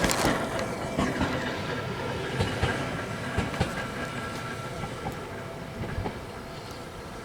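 Ohmi Railway electric train moving away, its wheels clacking over rail joints as the sound steadily fades.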